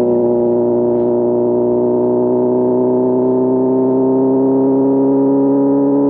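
Inline-four motorcycle engine pulling steadily in one gear, its pitch rising slowly and evenly as the bike gathers speed.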